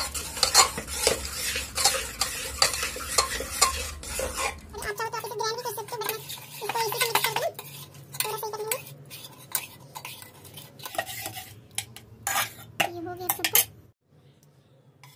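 A metal spoon stirring and scraping cooked khichdi in an aluminium pressure cooker, with repeated clinks and knocks of the spoon against the pot's sides. It stops about a second before the end.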